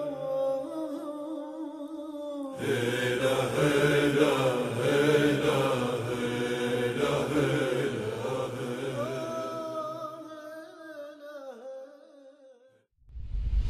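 A solo voice chanting an Arabic nasheed in long, held, wavering notes with a reverberant sound. It breaks off briefly about two and a half seconds in, swells back, then fades away near the end.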